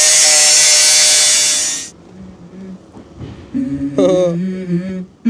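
An electric power saw or grinder runs at full speed, a loud, steady hiss with a thin whine, and cuts off abruptly about two seconds in. After a short lull, pitched sounds that bend in pitch begin, leading into music.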